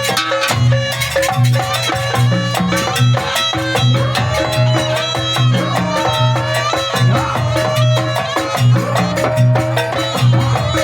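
Live Javanese jaranan gamelan music: a fast, dense stream of drum and tuned metal percussion strikes over a steady, pulsing low beat.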